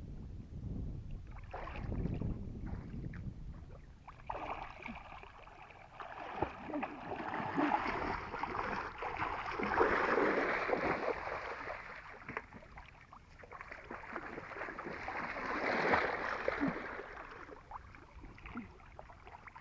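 Water sloshing and splashing in uneven swells, with small splashes and clicks, loudest about halfway through and again a few seconds before the end.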